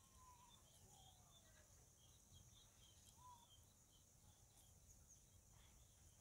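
Near silence: faint outdoor ambience with distant birds chirping now and then.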